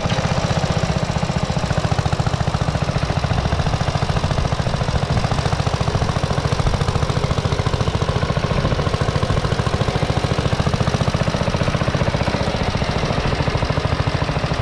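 1948 Trusty two-wheeled pedestrian tractor's 600cc single-cylinder JAP petrol engine running steadily while pulling a plough, with a fast, even single-cylinder beat.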